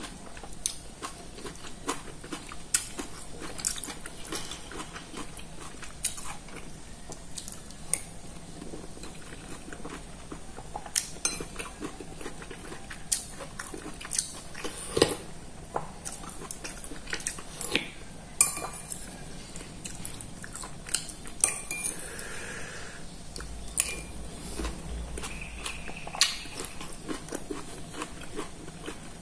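A metal spoon clinking and scraping against a ceramic soup bowl in irregular sharp taps as clear spinach soup is eaten, with chewing and sipping between the taps.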